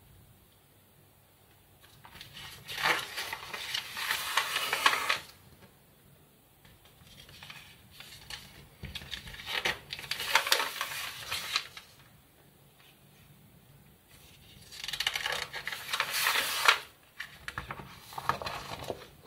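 Glossy magazine pages being turned and smoothed flat by hand, in four separate rustling bouts with short quiet gaps between them.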